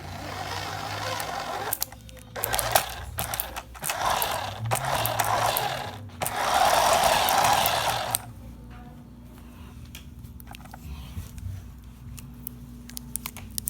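A toy RC car's small electric motor and gears run in four spurts of about two seconds each. About eight seconds in they stop, and only scattered clicks and rattles follow.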